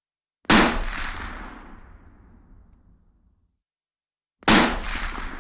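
Two single rifle shots about four seconds apart, each with a long echoing tail that fades over about three seconds.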